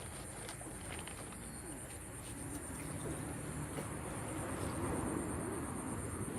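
Outdoor ambience dominated by a steady, high-pitched, finely pulsing insect chirring, with a faint low hum and a soft background haze beneath it.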